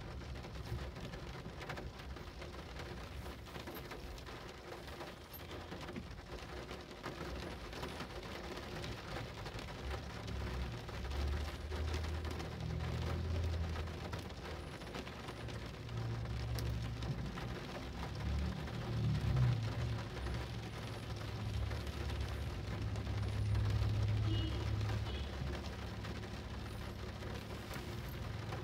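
Rain falling steadily, a dense patter of drops. Underneath, a low rumble swells and fades several times through the second half.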